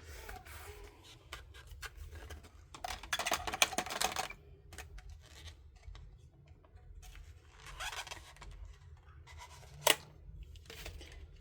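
Plastic packaging crinkling and rustling as small tools are unpacked and sorted by hand, in irregular bursts that are loudest a few seconds in, with one sharp click near the end.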